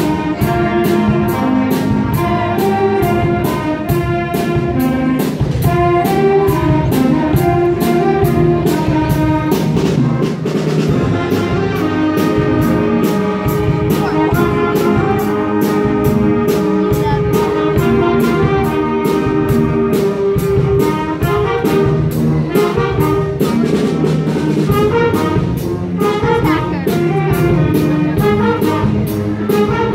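School concert band playing live: saxophones, flutes, clarinets and brass playing together over a steady drum beat.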